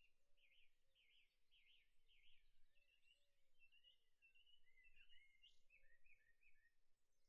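Near silence, with very faint bird chirps in the background, a few at a time, a little louder past the middle.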